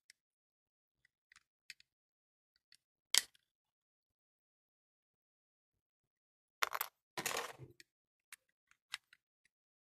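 Plastic clicks and snaps of a Trodat 4810 self-inking date stamp being taken apart by hand: one sharp click about three seconds in, then a quick cluster of clicks and rattling around seven seconds, with a few faint ticks in between.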